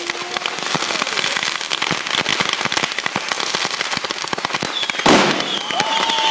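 Fireworks going off: continuous dense crackling and popping, with one loud bang about five seconds in. Two whistling tones start near the end, one high and steady, one lower and slowly falling.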